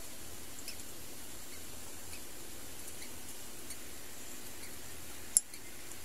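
Steady background hiss with faint, scattered short ticks and one sharp click about five and a half seconds in.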